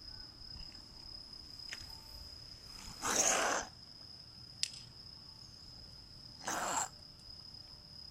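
A ginger stray cat sneezing twice, a few seconds apart, each sneeze a short hissy burst, with a single sharp click between them. A steady high-pitched insect note runs underneath.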